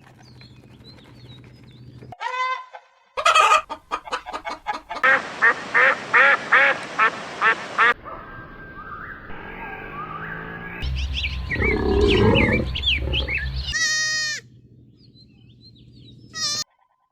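Farm poultry calling in a series of short cut-together clips: loud, repeated pitched calls, several in quick succession, with abrupt changes between clips.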